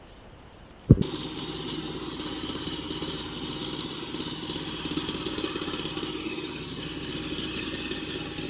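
After a quiet first second, a small fishing boat's inboard engine runs steadily under way at trolling speed, with the wash of water along the hull.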